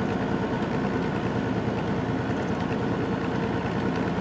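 Semi truck's diesel engine running steadily under load as it pulls up a grade, heard from inside the cab along with road noise.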